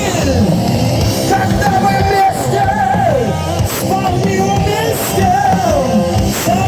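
Live rock band playing loudly, with a melodic lead line that holds notes and slides down in pitch over the full band.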